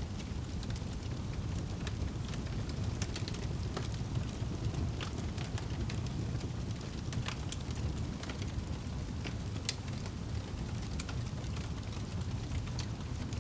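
Fireplace fire crackling: irregular sharp pops and snaps scattered over a steady low rumble.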